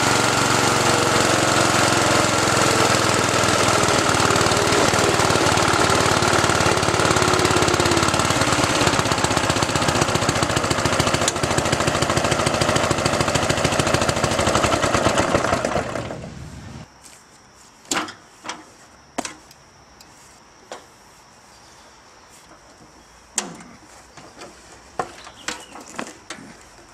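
Craftsman riding lawnmower's 12 HP engine running steadily under way, then shut off about sixteen seconds in and winding down to a stop. After it stops, a few sharp clicks and knocks are heard over a steady insect chirring.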